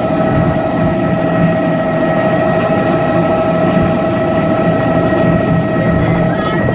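Helicopter engine and rotor running at flight power as it lifts off and climbs, heard from inside the cabin: a loud steady whine with a constant beating rotor underneath.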